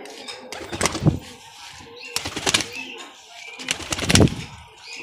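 A young pigeon beating its wings in three short bursts of rapid flaps while held in a keeper's hands.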